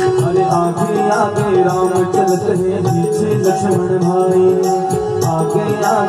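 Devotional bhajan music over a public-address loudspeaker: a singing voice over held instrumental tones, with rattling percussion keeping a steady beat.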